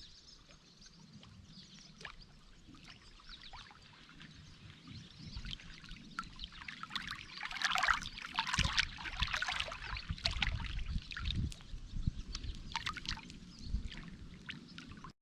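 Water trickling and splashing in many small irregular spatters over a low rumble, growing louder about halfway through, then cut off suddenly.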